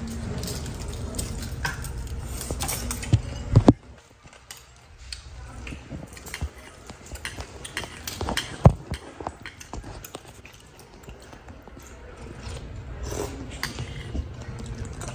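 Metal spoons clinking and scraping against ceramic soup cups, with scattered tableware knocks and eating sounds. A steady low background hum cuts off abruptly about four seconds in.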